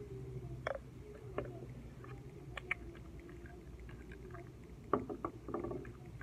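Light clicks and taps of small glass bottles and essential-oil dropper bottles being handled, about half a dozen separate ticks over a steady low hum. A child's faint drawn-out whine carries on in the background through the first half.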